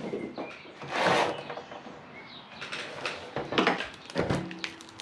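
Rustling and clattering of a car engine wiring harness being handled on a workbench: a swell of rustling about a second in, then several sharp clicks and knocks from the plastic conduit and connectors.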